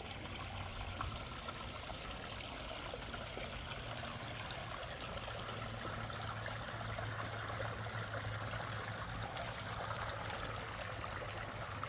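Water trickling and splashing steadily in a backyard garden waterfall.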